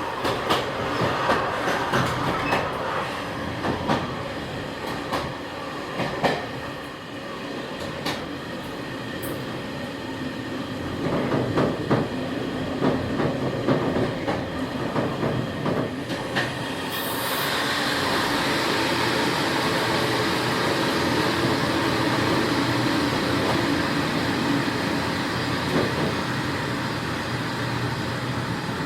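Train of old non-air-conditioned passenger coaches rolling along the rails: wheels clacking over rail joints with scattered knocks. About 17 seconds in the sound changes suddenly to a louder, steady rush.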